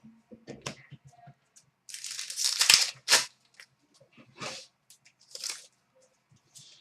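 Plastic card wrappers and trading cards being handled: a few short bursts of crinkling and tearing, the loudest about two to three seconds in.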